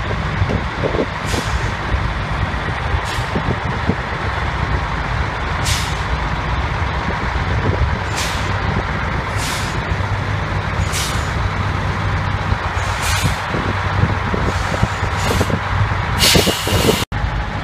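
Detroit Diesel 6V-92T two-stroke V6 turbo diesel idling steadily in an FTF tractor unit while it jump-starts another truck, with about ten short hisses of escaping air and a longer hiss near the end.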